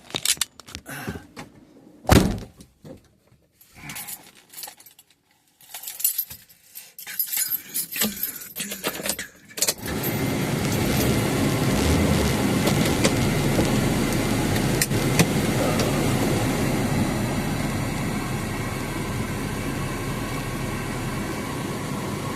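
Keys jangling and scattered clicks and knocks from handling. About ten seconds in, a vehicle engine starts and then runs steadily.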